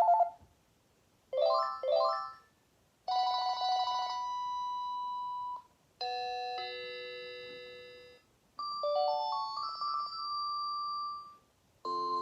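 Panasonic KX-TGDA50 cordless phone handset playing its built-in electronic ringtones one after another, each separated by a short pause. A trilling ring ends just after the start, followed by a pair of quick rising note runs, a held chime, a few held notes that fade away, and a rising run of notes; another ringtone begins near the end.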